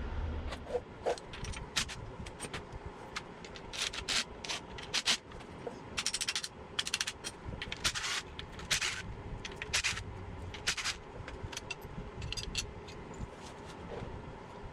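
Hand tools and metal engine parts clinking, scraping and rattling in irregular bursts as parts are unbolted from an air-cooled VW engine during teardown, over a steady fan hum.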